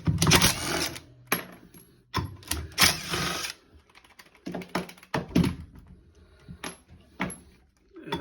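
Ratchet wrench with a half-inch socket clicking in several short spells, with metal scraping, while loosening a bolt on a washing machine's balance weight.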